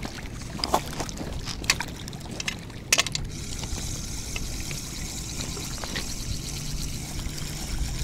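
A few sharp clicks and knocks of rod handling, then, from about three seconds in, the steady whirr of a spinning reel being cranked to wind in line with a small fish on.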